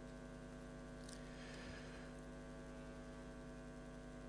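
Steady electrical mains hum from the sound system, with a faint tick about a second in.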